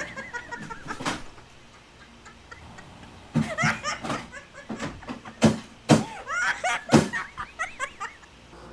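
Household things banged and clattered on purpose to make noise: a knock about a second in, then a string of sharp knocks and bangs from about three seconds in, mixed with high, squeaky, warbling sounds.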